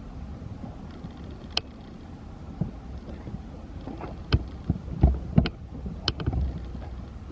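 Wind rumbling on the microphone, with a few sharp clicks and knocks, most of them about halfway through.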